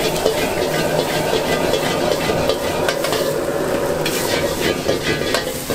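Wok stir-fry over a high-flame gas burner: a steady burner roar and sizzling food, with a metal ladle repeatedly scraping and knocking against the wok.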